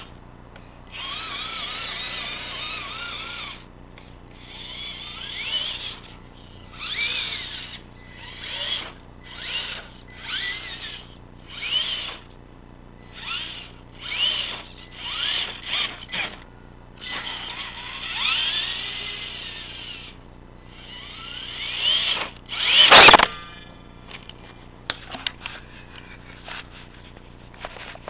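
Electric motor and geartrain of an RC rock crawler whining in repeated bursts as the throttle is pushed on and off, the pitch rising and falling with speed. One loud knock comes a little after three-quarters of the way through, followed by a few light clicks.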